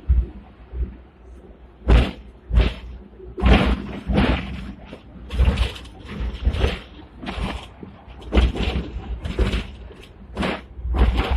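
Sixth-generation Hong Kong double-decker tram running along street track: a series of loud, irregular clunks and rattles, one or two a second, from the wheels on the rails and the car body shaking, over a low rumble.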